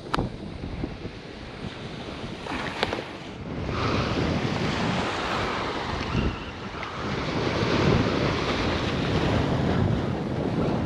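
Small waves washing onto the beach with wind buffeting the microphone, growing louder about four seconds in. Before that, two sharp clicks from a plastic tackle box being handled.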